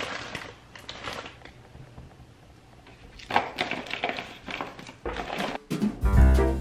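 Crinkling and rustling of wrapped peanut butter cup candies being handled, in two bursts a few seconds apart. Piano-led music with a beat starts near the end.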